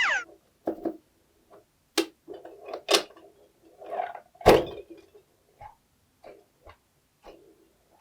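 A string of sharp taps and knocks at uneven intervals, the loudest about two, three and four and a half seconds in. A short rising whistle-like glide sounds right at the start.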